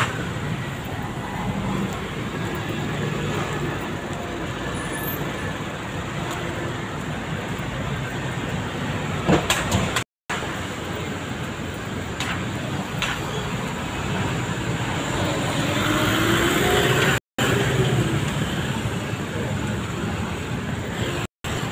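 Steady road traffic noise from motor vehicles passing on a busy street, with a few brief clicks. The sound cuts out abruptly three times for a moment.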